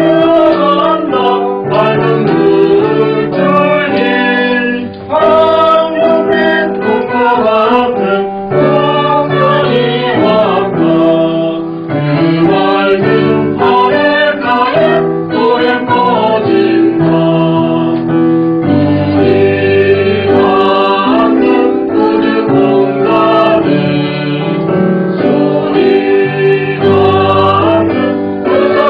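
Church choir singing a Korean harvest-thanksgiving anthem, with women's voices prominent, over piano accompaniment. The sung notes are held and change steadily, with no break.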